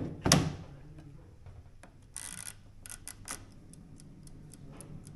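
Mechanical ticking from a kitchen appliance while sausages are set to roast, about four clicks a second through the second half. A sharp knock comes just after the start and a short hiss a little after two seconds.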